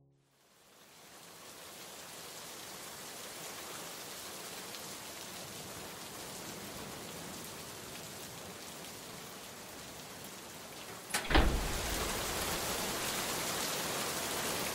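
Steady hiss of rain as a recorded track intro, fading in from silence, with a sudden sharp crack about eleven seconds in followed by a low rumble.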